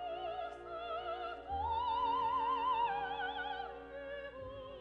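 Operatic soprano singing long held notes with a wide vibrato over sustained instrumental accompaniment. The voice steps up to a higher note about a second and a half in and falls back to lower notes near the end.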